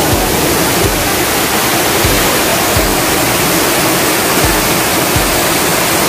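Shifen Waterfall, a wide curtain of water falling over a rock ledge into a pool, making a loud, steady rush of falling water.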